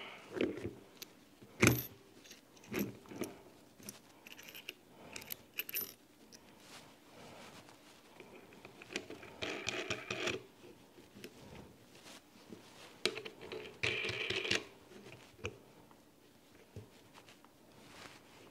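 A sight pusher tool being fitted onto a pistol slide: scattered metallic clicks and clinks of metal parts handled and set in place, with a sharp click about two seconds in and two longer spells of rattling and scraping later on.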